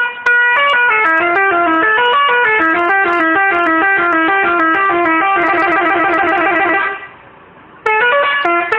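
Telolet musical horn on an angkot minibus playing a fast melody of short stepped notes, breaking into a rapid two-note warble, then cutting out for about a second before the tune starts again near the end.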